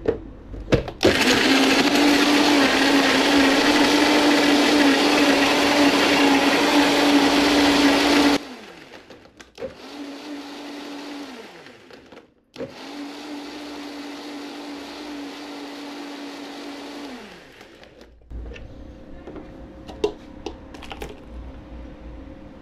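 Vitamix Drink Machine Two-Speed blender crushing ice for a blended drink: the motor runs loud and steady for about seven seconds, then stops. It runs twice more, more quietly, each time falling in pitch as it winds down, followed by faint clinks and the thick drink being poured into a cup near the end.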